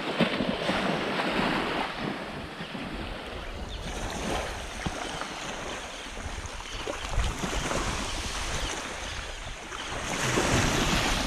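Small waves lapping and washing on a sandy shoreline, with wind buffeting the microphone; the wash gets a little louder near the end.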